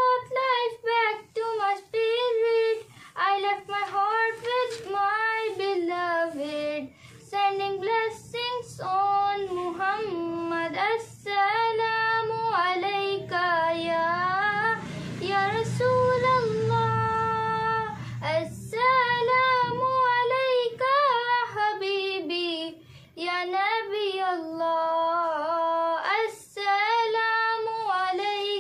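A girl singing a naat in Arabic, unaccompanied, in long melodic phrases with brief breaths between them.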